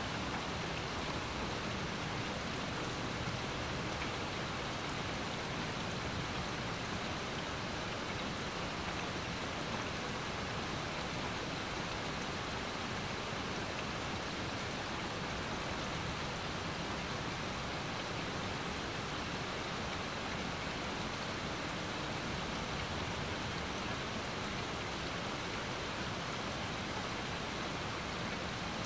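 Steady rain falling on trees and a lawn: an even hiss that holds level throughout, with no distinct drops or thunder standing out.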